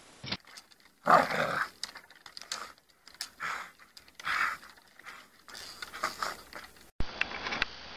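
A dog growling in short rough bursts, about one a second, as it hangs by its jaws from a tree.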